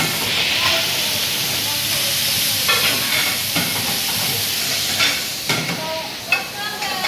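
Food sizzling on a flat-top griddle, a steady hiss, with short metallic clicks of tongs turning the pieces.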